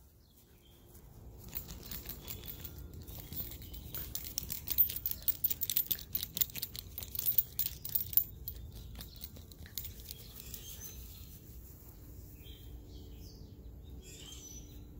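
Rapid crackling and rustling of grass close to the microphone as a puppy moves and noses around it, densest from about two to ten seconds in. Faint bird chirps near the end, over a low steady rumble.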